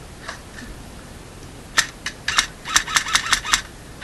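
Airsoft gun shots: a single sharp crack about two seconds in, two more close together, then a quick string of about six in under a second.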